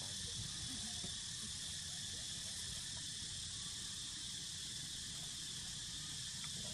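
Insects buzzing in a steady, high, unbroken drone, with a low, even hum beneath.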